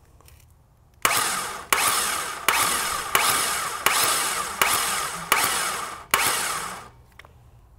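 GM LS V8 being cranked over by its starter without firing, the valve cover off. The starter makes a run of about eight rhythmic pulses over some six seconds, starting about a second in and stopping near the end.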